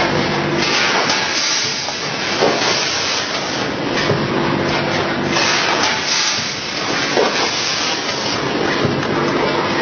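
Automatic rotary powder pouch-packing machine running: a steady, noisy mechanical wash with a faint hum that fades in and out and a few sharp clacks at irregular moments.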